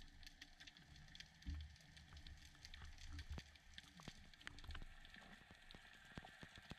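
Faint underwater ambience: dense scattered clicking and crackling over a low rumble, with a couple of dull low bumps about a second and a half and three seconds in.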